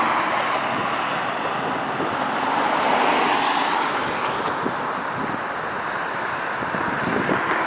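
Road traffic noise from cars passing close by on a bridge roadway, with wind rushing on the microphone; the noise swells about three seconds in as a vehicle goes by.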